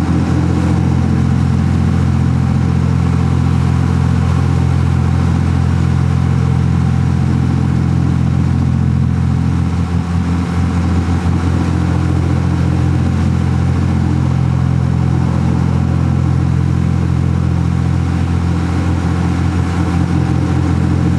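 A towing boat's engine running steadily under way, a loud low drone that holds the same pitch throughout, with water rushing in the churning wake.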